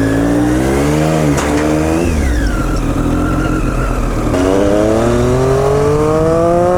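Vehicle engine accelerating: its pitch climbs, drops at a gear change about two seconds in, then rises steadily again as it pulls through the next gear.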